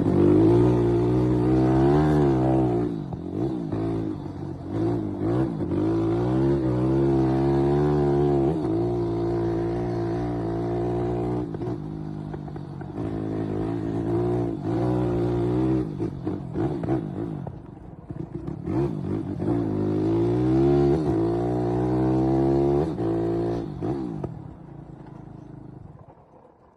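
Vehicle engine idling and being revved again and again, its pitch rising and falling with each blip of the throttle. It dies away near the end.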